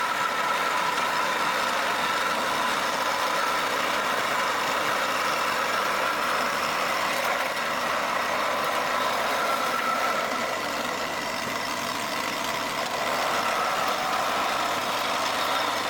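Rippa RS06 skid steer loader running steadily at work: an even engine drone with a faint steady whine.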